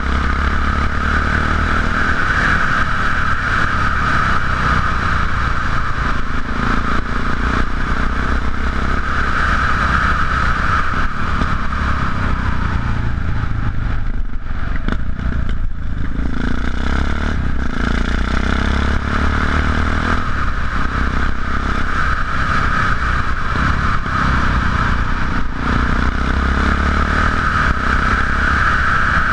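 Yamaha XT660X single-cylinder engine running through aftermarket Leo Vince exhausts while riding, a steady engine note that drops away briefly around halfway through before picking up again.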